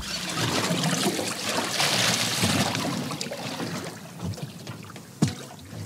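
Sea water lapping and splashing against a small boat's hull, louder for the first few seconds and then easing off. A single sharp knock about five seconds in.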